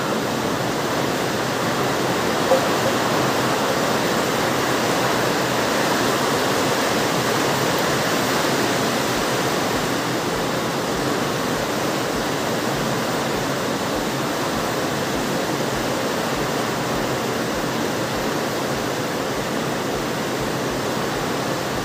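A steady, even rushing noise like rain or a fan, with one brief knock about two and a half seconds in.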